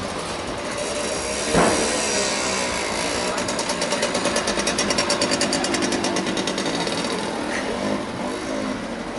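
City street traffic at close range, with a motor scooter's small engine passing in a rapid pulsing run in the middle, a coach bus and cars moving nearby. A single sharp knock comes about a second and a half in.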